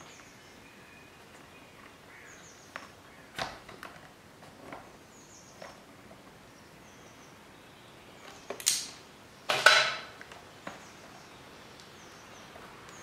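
Rubber fuel hoses being worked onto a new plastic inline fuel filter: a few sharp knocks and handling noises, then two louder short scraping rubs near the end as the hose is pushed over the filter's spigot. Faint high chirps recur in the background.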